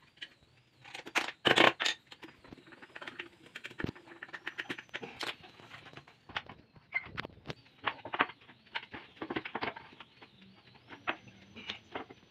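Scattered clicks and knocks of wooden boards and a hand screwdriver being handled while metal hinges are screwed on, with a louder cluster of knocks between one and two seconds in.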